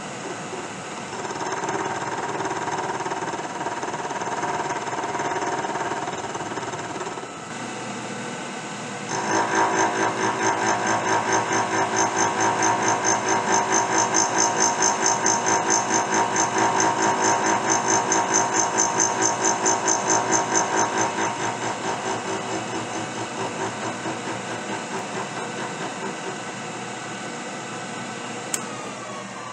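Milling machine spindle driving a disc-shaped slot cutter through the breech end of a steel rifle barrel, cutting the extractor slot. About nine seconds in the cut gets louder with a rapid, even pulsing as the cutter teeth bite, easing off after about twenty seconds; near the end the spindle's pitch falls as it winds down.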